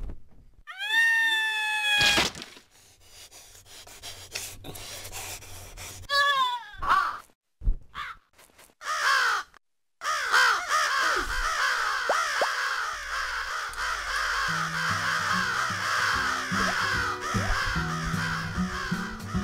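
Cartoon animal calls: a single pitched, gliding cry about a second in and another around six seconds, then from about halfway a dense chorus of many overlapping chirping calls. Low music notes come in under the chorus near the end.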